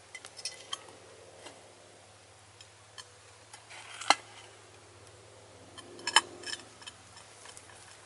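Cookware being handled on a rock: scattered light clinks and clatters, with two sharp knocks, about four and about six seconds in.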